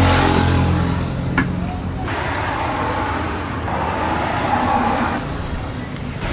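A motor vehicle's engine running close by, loudest at the start and fading over the first two seconds, then steady street traffic noise.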